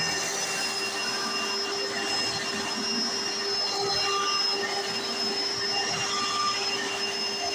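Hoover Encore Supreme upright vacuum cleaner running steadily, its motor and brush roll giving a constant drone with a steady whine.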